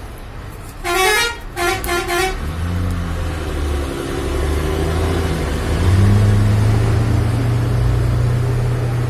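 A vehicle horn sounds three short times, one longer blast then two quick ones. A vehicle engine then runs with a low steady hum, revving up and getting louder about six seconds in.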